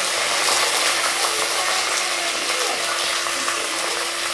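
Hot oil sizzling with fine crackles in a clay pot as curry leaves and whole spices (cinnamon, fennel seeds, cardamom, bay leaf) fry in it.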